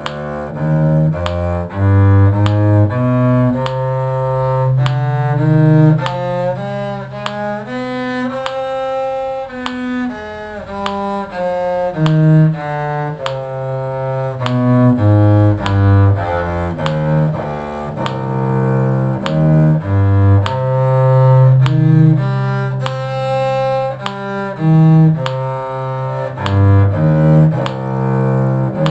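Cello playing a C harmonic minor scale and arpeggio, bowed notes stepping up and down at an even pace with some long held low notes.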